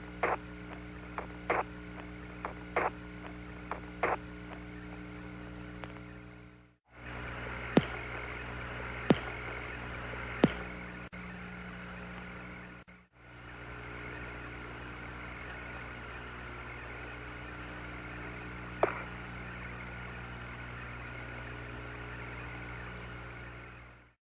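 Open Apollo radio channel with no voice on it: a steady hiss over a mains hum, broken by sharp clicks. There are several clicks in the first four seconds, three louder ones about a second and a half apart around the middle, and one more later. The audio cuts out briefly twice and stops near the end.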